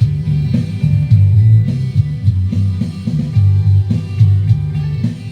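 Music with a heavy, prominent bass line, guitar and a steady drum beat.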